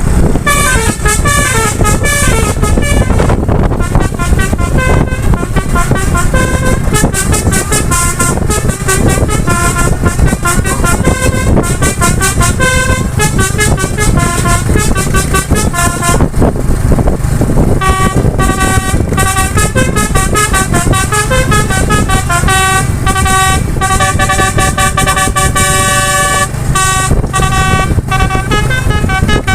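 Indonesian bus basuri (telolet) multi-tone horn playing a tune of short stepped notes over a loud low rumble. The notes thin out briefly about halfway through, then resume.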